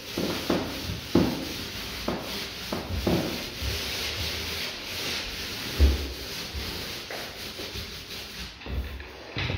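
Paint roller on an extension pole rolling paint onto a wall: a continuous rasping swish that swells with each up-and-down stroke, with a few low knocks and one louder thump about six seconds in. The swishing stops shortly before the end as the roller comes off the wall.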